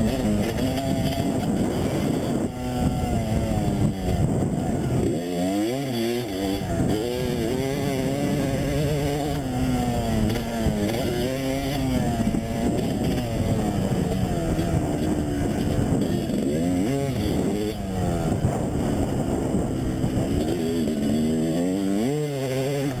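Motocross dirt bike engines running on the track. The engine pitch climbs and drops over and over as the riders work the throttle and shift, with a few sharp revs.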